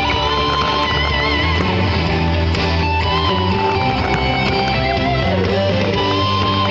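Music with guitar, at a steady level.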